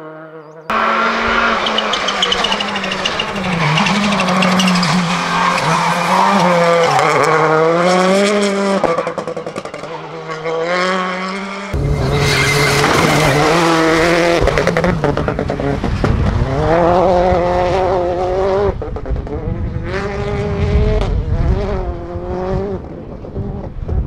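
Citroën C3 Rally2 rally cars' turbocharged 1.6-litre four-cylinder engines running hard on stage, revs rising and falling again and again through gear changes and corners. The sound jumps abruptly to a new pass about a second in and again about twelve seconds in.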